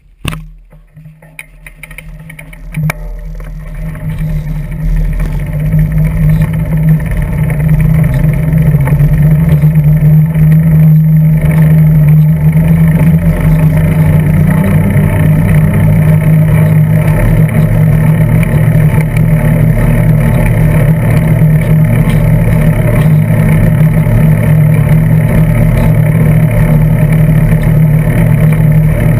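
Bicycle riding along an asphalt street, picked up by a camera clamped to the seat post: a steady rumble of tyres, frame vibration and wind on the microphone. It builds over the first several seconds and then holds steady.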